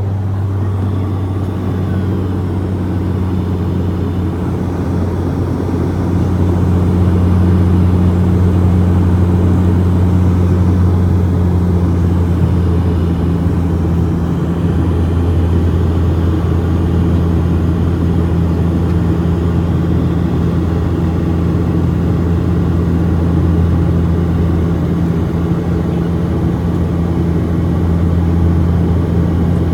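Cabin drone of a Dash 8 Q400 turboprop airliner's engines and propellers on approach. It is a steady low hum with a second, higher hum above it, rising slightly in loudness about six seconds in.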